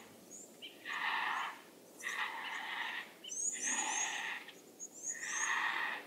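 White-backed vulture calling: harsh, rasping calls about a second long, four of them, each about a second and a half after the last. Thin, high chirps from small birds come between them.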